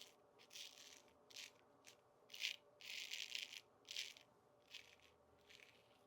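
Dubl Duck 6/8 full hollow straight razor scraping through lathered stubble: about nine faint, short strokes, with one longer stroke about three seconds in.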